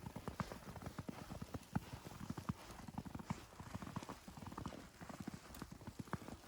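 Footsteps crunching in fresh powdery snow at about −10 °C: a steady walking rhythm of short, crisp crunches.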